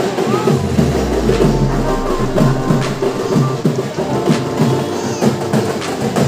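Background music with a steady percussion beat and low bass swells.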